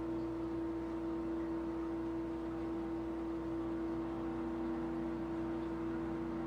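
Steady mechanical hum with one strong constant tone and a few fainter higher tones over a low hiss.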